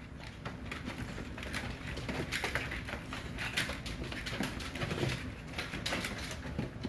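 Four-week-old pocket bully puppies whimpering and squeaking in short, irregular cries, mixed with small clicks and scuffs.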